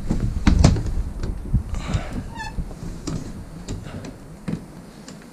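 Caravan window catches clicking and a window being pushed open on its stay: a series of clicks and knocks, the loudest about half a second in, with a short squeak about two and a half seconds in.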